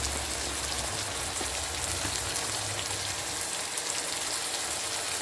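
Ground chicken, red bell pepper and tomatoes sizzling in oil in a wok, a steady crackling hiss, with a low hum under the first few seconds.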